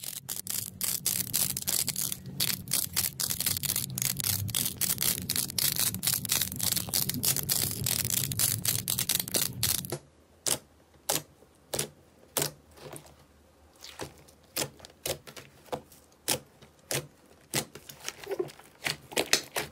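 Dense crackling clicks as fingers press a sheet of small pastel-coloured balls. After a cut about ten seconds in, separate sharp pops and clicks, roughly two a second, as fingers press and knead glossy pink slime.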